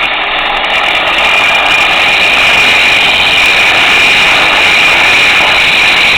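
Bench grinder grinding the zinc galvanizing off a piece of steel, a loud, steady grinding hiss that holds throughout, the metal being ground down to bare, shiny steel.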